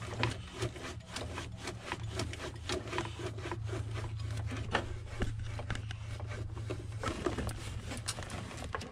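Irregular rubbing and scraping with many small clicks: a hand and sleeve working among the engine-bay wiring and hoses while unscrewing the automatic transmission filter canister by hand. A steady low hum runs underneath and fades about seven seconds in.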